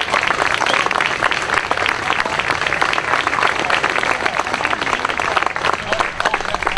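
Spectators applauding: a dense, steady patter of many hands clapping.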